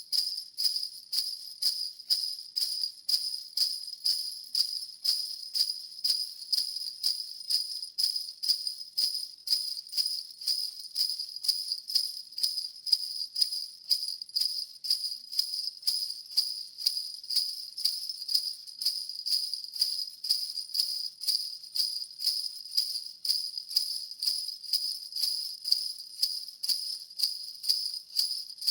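Sleigh bells (jingle bells) shaken in a steady, slow, even rhythm of about two shakes a second, each shake a bright high jingle, looped without a break.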